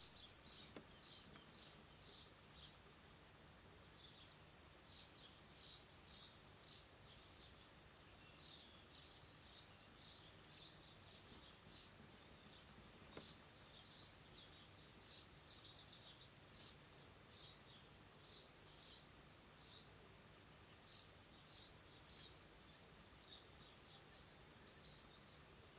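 Faint bird calling: short high chirps repeated about twice a second with a few short pauses, breaking into a quicker run of notes about halfway through.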